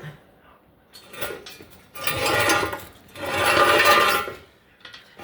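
Two bursts of rapid metallic mechanical clicking from a hand tool's mechanism, one about two seconds in and a longer one a second later.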